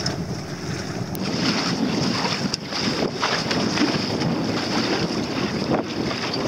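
Small sailboat under sail: wind buffeting the microphone and water rushing along the hull in a steady noisy wash, with a few brief splashes.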